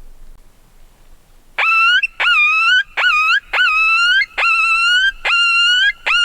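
Predator call sounding a run of loud coyote-like whines, about seven in quick succession starting about a second and a half in, each sweeping sharply up in pitch and then wavering.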